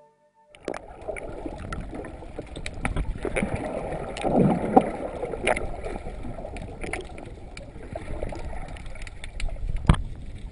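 Underwater sound picked up by a GoPro Hero2 in its waterproof housing: a muffled rushing of water and bubbles with scattered sharp clicks and crackles, starting about half a second in and swelling briefly near the middle.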